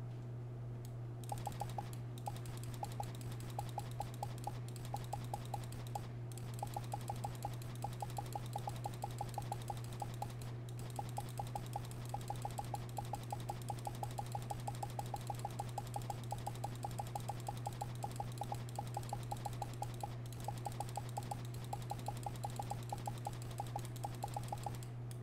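Main buttons of a G-Wolves HSK wired fingertip mouse clicking rapidly, in quick runs of several clicks a second, over a steady low hum.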